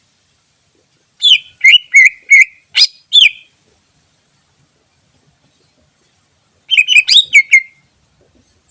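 Greater green leafbird (cucak ijo) singing: a phrase of about six sharp whistled notes, then after a pause a quicker run of about five notes.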